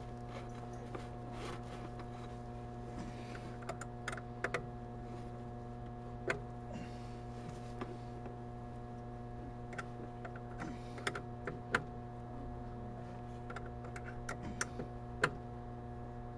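Irregular sharp metallic clicks and taps of a wrench working the battery-cable nut on a lawn tractor's starter solenoid terminal, over a steady low hum.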